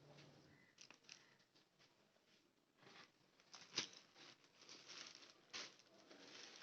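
Faint rustling and crinkling of packaging being handled during an unboxing, with a sharper crackle about four seconds in and another near the end.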